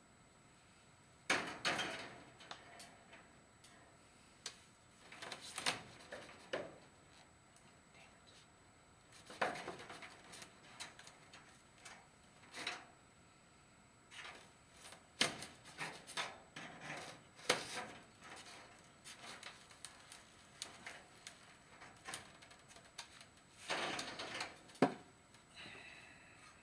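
Wire snips cutting short pieces of wire, with sharp clicks and snips at irregular intervals among the rustle of handled wire mesh.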